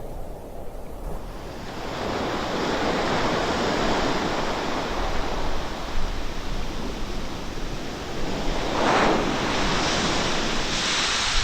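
Rushing wind-like whoosh, an added sound effect for an FPV drone's flight. It swells in after about a second and a half and surges twice near the end.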